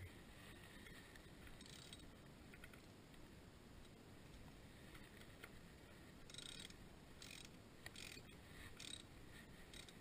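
Faint, short raspy ratchet-wrench strokes on a car battery terminal clamp, once about two seconds in and four or five more in the second half, over near silence.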